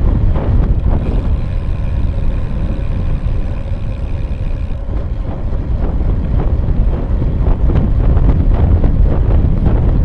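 Wind buffeting the microphone of a bike-mounted camera on a moving bicycle, a loud steady rumble with road noise underneath. A faint steady high tone runs through the first half, stopping about five seconds in.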